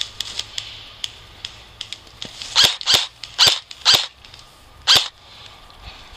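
Airsoft replica rifle firing five single shots, short sharp cracks spaced about half a second to a second apart, after a run of faint clicks.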